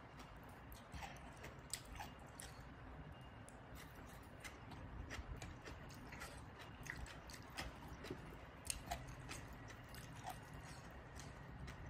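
Faint close-up eating sounds: soft chewing and scattered small wet clicks as fingers pick through a green papaya salad.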